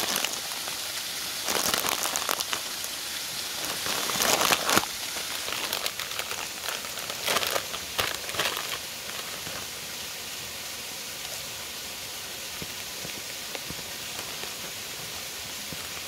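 A potato chip bag crinkling and rustling in several bursts through the first nine seconds or so. Under it and after it runs the steady rush of a waterfall.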